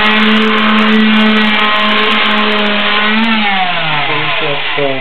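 Electric hand sander running steadily on the edges of clamped wooden boards, then switched off a little after three seconds in, its motor pitch falling as it winds down.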